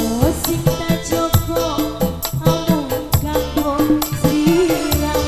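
Live band music with a woman singing into a microphone, amplified through a sound system; drums keep a steady beat.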